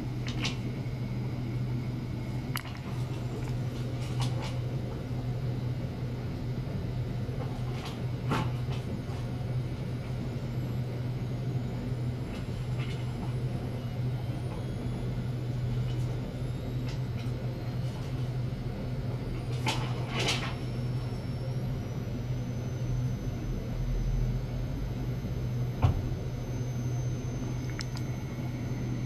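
A steady low hum, with a few faint clicks and a short rustle about twenty seconds in; faint high thin tones slowly rise in pitch through the second half.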